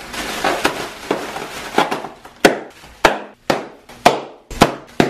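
Plastic bubble-wrap packing being twisted by hand: crinkling at first, then about seven sharp, loud pops roughly every half second as the bubbles burst, loud enough to pass for gunshots.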